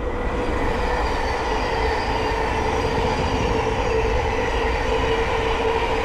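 Thameslink Class 700 electric multiple unit passing on the main line: a steady rush of wheels on rail with a steady whine over it.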